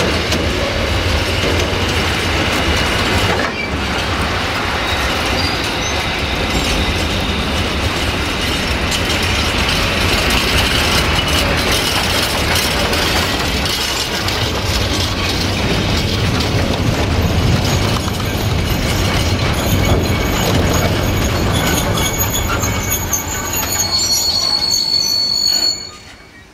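Freight wagons rolling past close by, their wheels rumbling and clattering over the rail joints. In the second half, high-pitched brake and wheel squeal rises over the rumble as the train slows. The noise drops away suddenly near the end as the wagons come to a halt.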